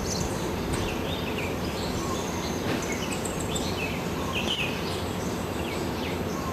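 Small birds chirping in short, scattered calls over a steady low background rush.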